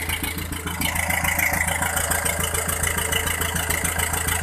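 A boat's engine running steadily with an even, rapid pulsing; it gets a little louder about a second in.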